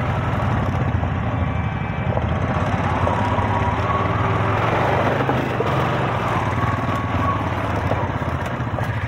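ATV (quad bike) engines running steadily while riding along a dirt trail, a continuous low engine hum with tyre and road noise.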